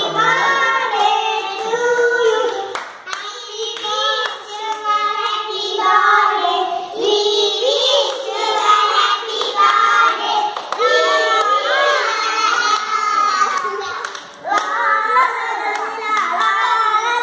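A group of children singing together in unison, with hand claps mixed in.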